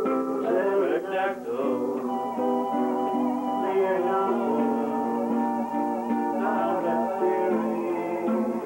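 Live music played on plucked string instruments of the guitar kind: chords and held notes, with a few notes sliding up and down in pitch about a second in.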